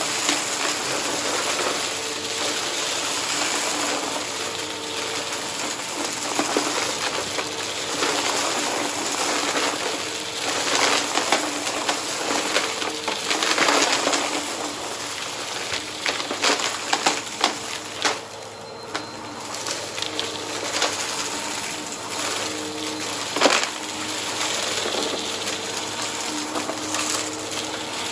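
Vacuum cleaner running over a carpet and sucking up crunchy debris: a steady motor hum under rapid crackling and sharp clicks of debris going up the nozzle.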